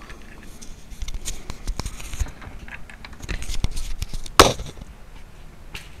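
Hands handling a ceiling fan light kit and its wiring: scattered small clicks, rattles and rustles, with one sharp, loud snap about four and a half seconds in.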